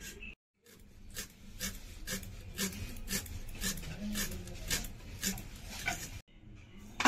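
Ginger, onion and tomato being finely chopped with a blade, one sharp cutting stroke about twice a second.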